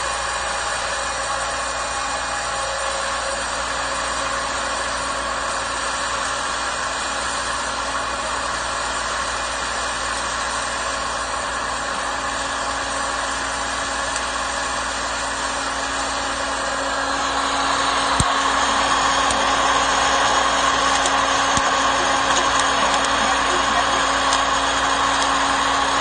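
Alsaif 1200-watt hot-air popcorn maker running, its fan blowing hot air through the kernels in a steady whirr. It grows louder about two-thirds of the way through, with a sharp click at that point.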